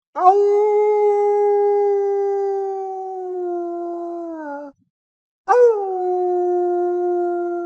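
Wolf howling: one long, level howl ending on a slight drop in pitch, then after a short silence a second howl that swoops up briefly, settles slightly lower and holds.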